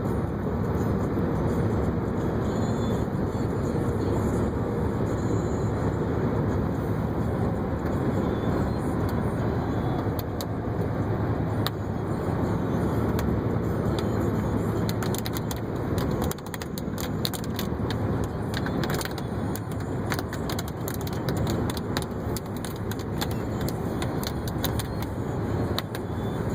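Steady road and engine rumble heard inside a moving car's cabin. From about halfway through, a scatter of sharp ticks and clicks rides over it.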